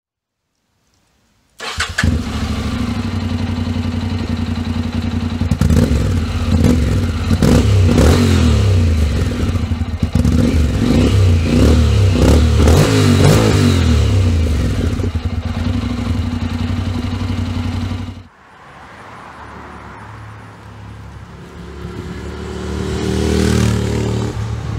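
Honda NC700X's 670 cc parallel-twin engine through a Scorpion Serket stainless slip-on with the dB killer baffle removed. It starts about a second and a half in, idles, and is revved several times in rising and falling sweeps before settling back to idle. After a cut, the bike is heard riding off on the road among traffic, its engine note swelling near the end.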